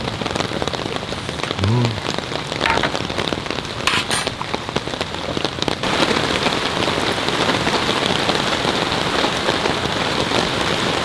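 Heavy rain falling steadily, growing denser and louder about six seconds in, with a brief click near four seconds.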